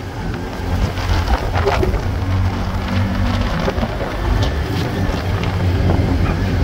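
Engine of a small passenger vehicle running steadily with road noise, heard from inside the moving vehicle, with a few light rattles and ticks.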